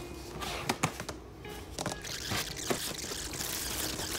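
Clear plastic storage totes knocking and clattering with several sharp clicks as they are shifted and searched, then a rushing hiss through the second half.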